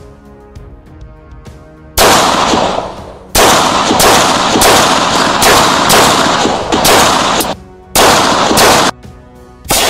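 Daewoo DH380 semi-automatic blowback pistol firing 9 mm rubber rounds, a quick string of loud shots starting about two seconds in, each trailing a long echo.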